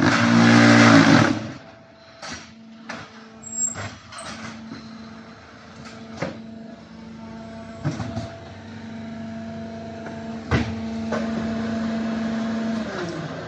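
A QT4-18 automatic concrete hollow block machine working through a pressing cycle. A loud buzzing burst comes in the first second or so, then sharp metal clanks of the mould and pallet moving over a steady low hydraulic hum. The hum grows louder for the last couple of seconds and falls away near the end.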